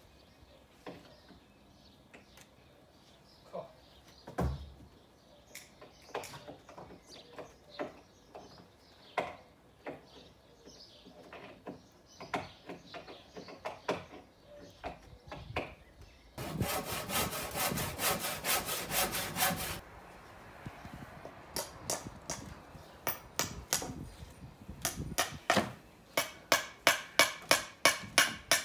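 Scattered knocks and clatters of wooden shed boards being worked, then a fast rhythmic rattle of about six strokes a second for some three seconds, then steady hammering on wood, about two blows a second, growing louder near the end.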